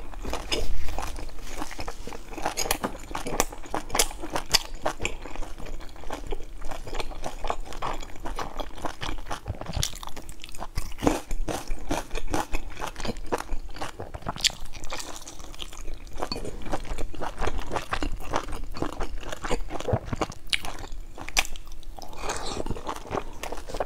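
Close-miked chewing and biting of large stuffed buns, a dense run of irregular short mouth clicks.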